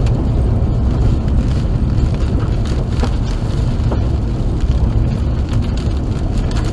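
Steady low rumble of a car driving with a window open, wind buffeting the microphone, with a couple of faint clicks.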